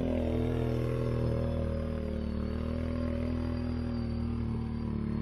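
Quad-bike (ATV) engine running at low, fairly steady revs, easing off right at the start and holding there.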